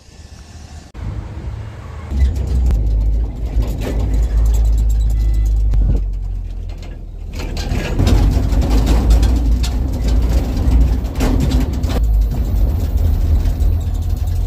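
A road vehicle driving, heard as a heavy, steady low rumble of engine and road noise with scattered knocks and rattles. The sound changes abruptly a few times, as if cut together from short pieces.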